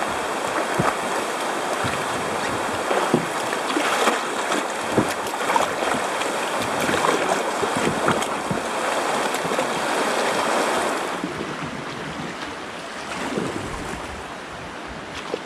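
Rushing, splashing water of a shallow river rapid around a kayak's hull, with scattered small knocks and splashes. About eleven seconds in the sound turns duller and quieter.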